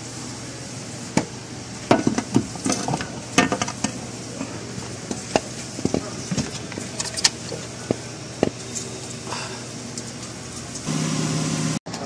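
Irregular metal clicks and knocks as an aluminium transmission valve body is handled and fitted into the transmission case, over a steady low shop hum. A louder steady noise comes in near the end and cuts off suddenly.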